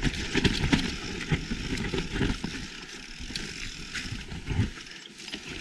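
Mountain bike riding down a rough dirt trail: tyre noise with rapid knocks and rattles from the bike over roots and rocks, plus low rumble on the microphone. It is busiest in the first half, eases off, then gives one heavier knock near the end.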